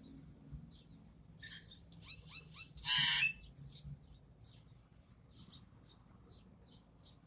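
A pet bird chirping in short high notes, with a quick run of falling chirps and then one loud, harsh squawk about three seconds in.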